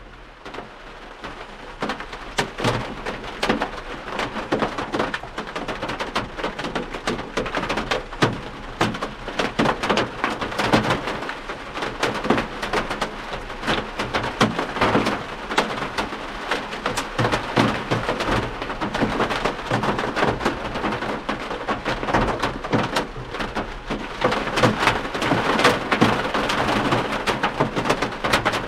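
Steady rain falling on the steel roof and windshield of a VW split-window bus, heard from inside the cabin: a dense patter of many separate drop hits.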